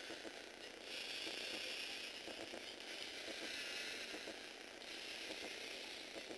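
LEGO Mindstorms NXT servo motor driving a train of plastic Technic gears: a dense whirring with rapid clicking, louder and higher from about a second in until nearly five seconds in.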